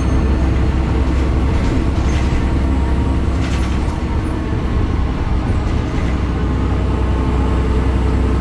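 BredaMenarini Avancity Plus city bus with its Deutz Euro 5 diesel engine and ZF transmission running steadily, dominated by a deep, constant low hum, with a few faint brief clicks.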